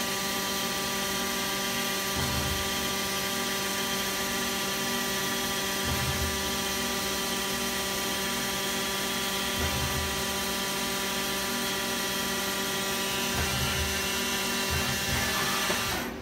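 Hardinge Talent 8/52 CNC turning center running a program: a steady machine whine of several fixed tones, with a low rumble returning about every four seconds. The sound drops off sharply near the end.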